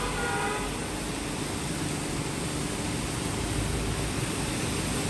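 Steady city rain: an even hiss of rainfall over a low rumble of traffic. A brief pitched tone sounds in the first half second.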